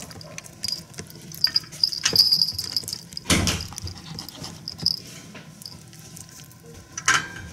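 Toy poodle puppy moving about inside a wire crate: scattered small clicks and rattles, faint high chirping tones on and off, and a short rustling burst about three and a half seconds in, with another near the end.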